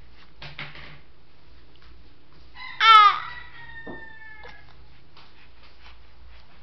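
A rooster crowing once: a short, loud rising-and-falling opening, then a held, slightly falling note lasting about a second and a half.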